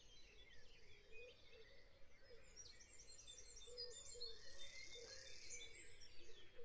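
Faint dawn chorus: many birds singing at once, with overlapping chirps.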